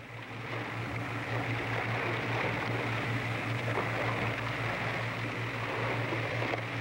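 Boat engine running steadily under way: a low, even drone with a rush of water and hiss over it.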